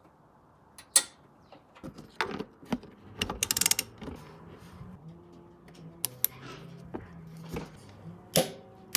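Ratchet torque wrench clicking as a transmission mount bolt is tightened to 74 newton meters: separate clicks, a quick run of ratcheting clicks a few seconds in, and a sharper single click near the end.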